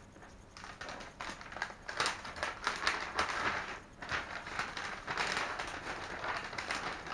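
A cardboard box being handled and opened by hand: dense rustling, scraping and crackling of cardboard and packaging.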